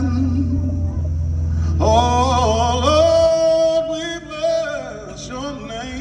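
Live gospel singing with band accompaniment: a singer slides up into a long held note about two seconds in, over a steady low bass note that stops about halfway through.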